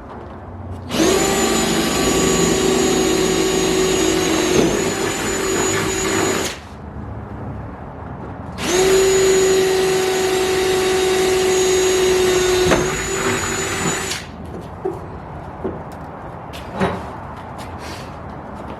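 Power drill running in two steady runs of about five seconds each, with a brief dip in pitch near the end of each as the bit bites. It is drilling holes through the spoiler to rivet a wickerbill on.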